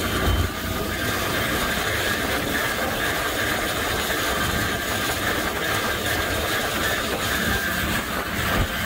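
Argo Conquest 8x8 amphibious ATV driving along a dirt track: its engine and drivetrain run steadily, a low rumble under a steady high whine. A low thump comes just after the start and another near the end.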